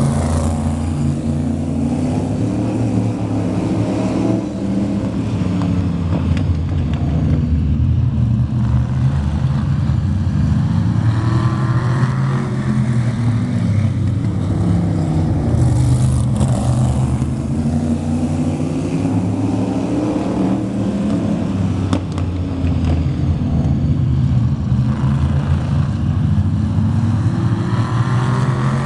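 Pack of vintage modified stock cars racing, their engines revving up and down as the cars come through the turn. The engine notes swell and fade as the pack passes close several times.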